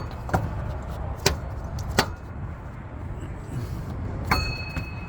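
Dead blow hammer striking the side of a Ford 5.4-litre V8's water pump to knock it loose from the block, four sharp blows at uneven spacing over a low background rumble.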